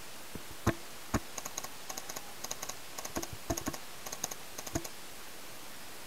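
Paintball markers firing: two sharp, louder pops about a second in, then quick strings of fainter pops in bursts of two to four until about five seconds in, over a steady hiss.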